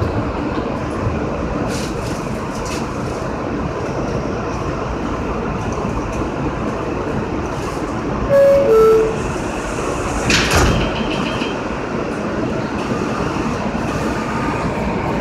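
Steady hum of an R160A subway car standing still. About eight seconds in, a loud two-note falling chime sounds, the door-closing chime. About two seconds later a short clunk follows as the doors shut.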